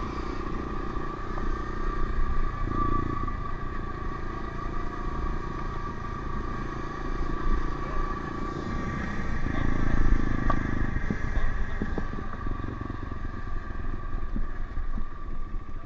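Honda CRF125F's air-cooled single-cylinder four-stroke engine running while the dirt bike is ridden, with the revs and loudness rising to a peak about ten seconds in.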